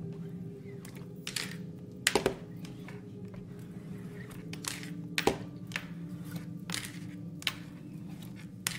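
Chalk paste being spread and scraped over a silkscreen transfer on a tin tray: scattered short scrapes and taps, the loudest about two seconds in, over a steady low hum.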